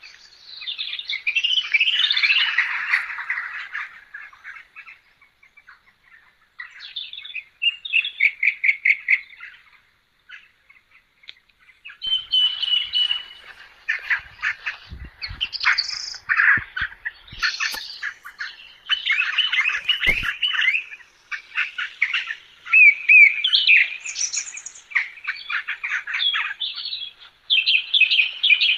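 Birds chirping and singing: bursts of rapid, high trilled notes and varied calls, broken by short pauses.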